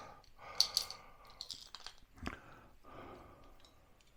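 Light clicks and taps of small screws and a metal cabinet hanging bracket being handled and fitted by hand, with a heavier knock about two seconds in.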